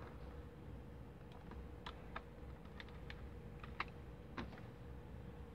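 Faint, irregular clicks, about a dozen scattered through, over a steady low hum.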